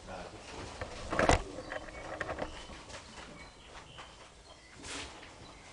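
Handling noises from a panel water tank being assembled: knocks and rustles of the panels and plastic packaging. The loudest is a single thump about a second in, with a brief swish near the end.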